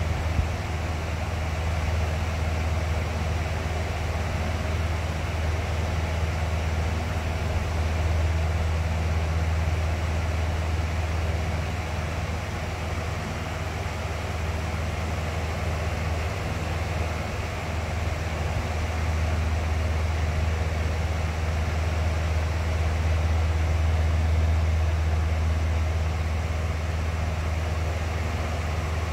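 Box fan running steadily: an even rush of moving air over a strong low motor hum, swelling and easing slightly in loudness.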